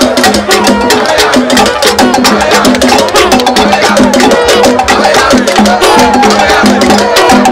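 Drums and clacking sticks beating a fast, even rhythm, with crowd voices over it.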